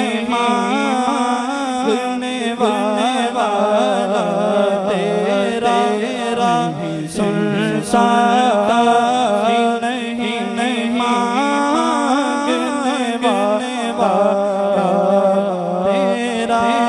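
Man singing a naat, an Urdu devotional song in praise of the Prophet, into a microphone: long, ornamented melodic lines with few breaks, over a steady low drone.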